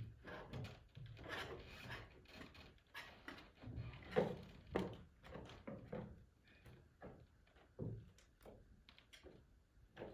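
A brush scraping and rubbing in short, irregular strokes as clear patch sealant is smoothed along a greenhouse roof seam.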